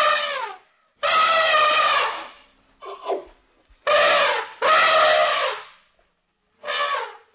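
Baby elephant hooting: a string of about six high-pitched calls, each up to about a second long, with short silences between them.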